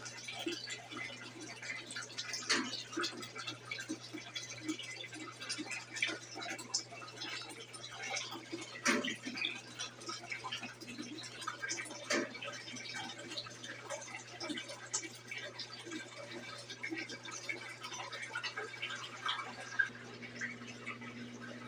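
Brastemp BWG11 11 kg washing machine on a wash cycle: water sloshing and splashing irregularly in the tub over a steady low hum.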